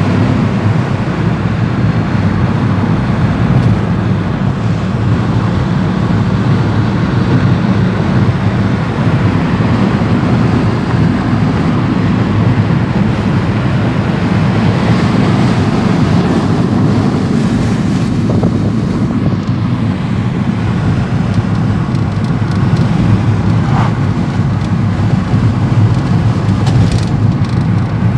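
Steady engine and tyre noise heard inside the cabin of a car driving along a road at an even speed.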